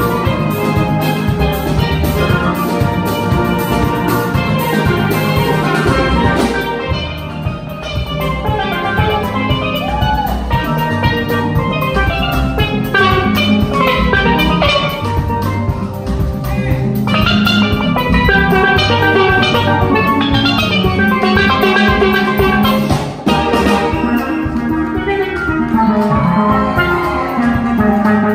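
Steelband ensemble playing live: several steelpans of different voices (double tenor, cello and bass pans) struck in quick runs of ringing notes over a drum kit.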